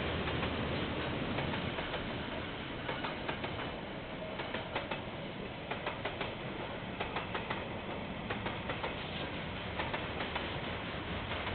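A KiwiRail train passing on the line: a steady rumble with a run of sharp clicks, a few a second, typical of wheels going over rail joints, heard through a security camera's microphone.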